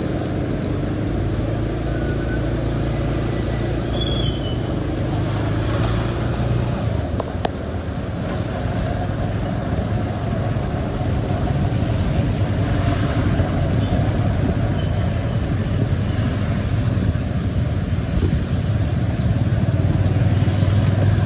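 Steady low rumble of road traffic and running vehicle engines, growing slightly louder near the end.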